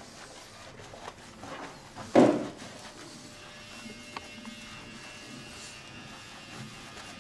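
A single loud slap of a hand on skin during a barber's massage about two seconds in. From about three seconds in, a faint steady buzz of a small electric device starts and carries on.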